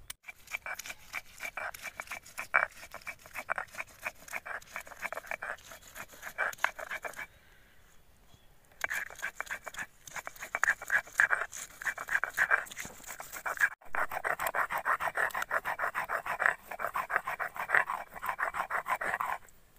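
Stone grinder rubbed rapidly back and forth on a flat stone grinding slab (shil-nora), wet-grinding ginger, garlic, green chillies and onion into paste: a fast, continuous rasping scrape. It stops for about a second and a half partway through, then starts again.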